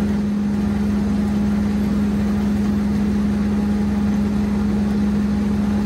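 Hammer mill feed mixer running steadily with a constant hum, as feed is unloaded from its spout into a sack.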